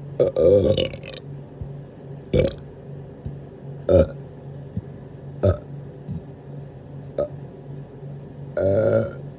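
A person burping six times: a long burp at the start, four short burps about a second and a half apart, and a longer one near the end.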